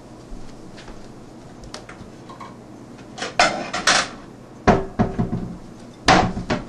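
Wooden kitchen cabinet doors being opened and shut. Two sharp clacks about three and a half seconds in as the doors open, a heavier thump about a second later as they close, and another knock near the end.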